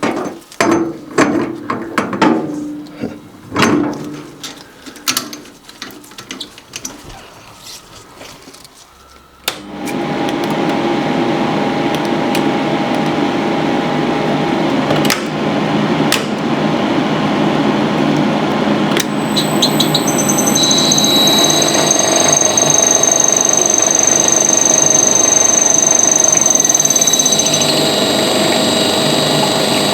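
Scattered clinks and knocks of kitchen utensils and dishes. Then, about nine seconds in, a small electric motor starts and runs steadily to the end, with a high whine joining it about halfway through.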